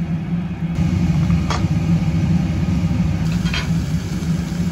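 Steady low mechanical hum of a yakiniku table grill's extractor fan, with two faint clicks about a second and a half and three and a half seconds in.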